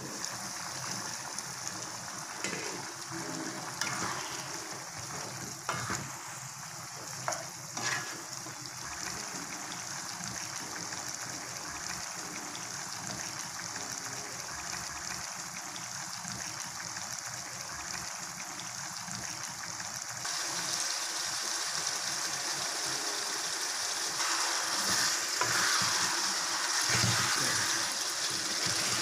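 Chicken frying in oil in a pan: a steady sizzle, with a few clicks of a spoon against the pan as it is stirred. The sizzle gets louder about two-thirds of the way through.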